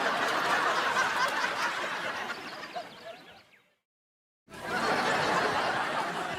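Studio audience laugh track: a crowd laughing together fades out a little before four seconds in, and after a short silence a second round of crowd laughter starts.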